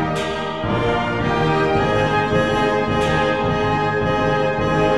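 Orchestral background music with brass, playing held chords, with a crash-like accent near the start and again about three seconds in.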